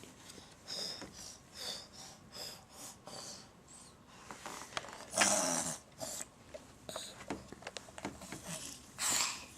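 A pet animal making short, breathy noises: a quick run of small ones in the first few seconds, then a louder one about five seconds in and another near the end.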